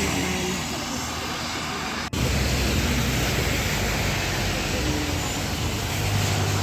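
Steady road traffic noise from vehicles passing on a busy road, with a low engine hum under it. It breaks off abruptly for a moment about two seconds in.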